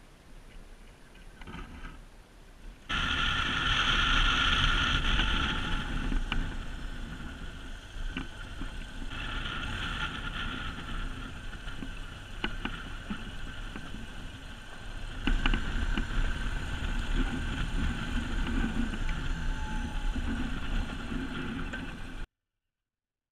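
BMW GS boxer-twin adventure motorcycle riding a gravel road: wind rushing over the camera microphone with the engine running underneath and a few sharp clicks. It is quiet for the first few seconds, then turns loud when the riding starts, and cuts off abruptly near the end.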